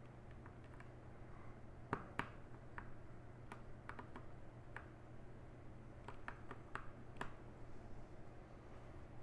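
Irregular sharp plastic clicks of a mechanical keyboard's keys and keycaps being handled as resin artisan keycaps are swapped onto the switches, the loudest pair about two seconds in.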